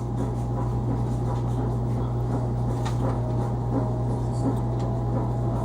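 A steady low hum, with a few faint small clicks over it.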